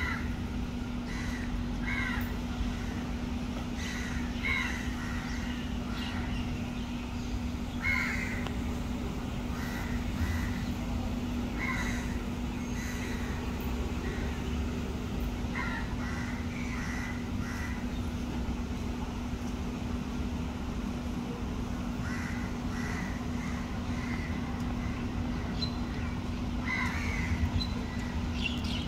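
Crows cawing in short calls at irregular intervals, over a steady low hum.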